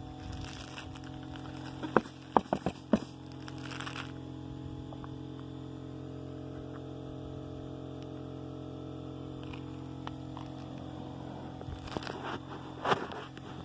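A steady hum runs throughout. A few sharp clicks come about two to three seconds in, and rustling scuffs near the end.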